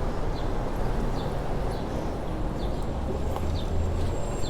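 Wind rumbling on the microphone of a moving bicycle, with a faint, regular tick about twice a second.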